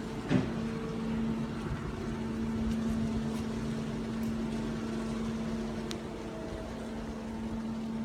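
Station ambience in typhoon weather: a steady mechanical hum over a rushing wind-like noise, with one sharp knock about a third of a second in.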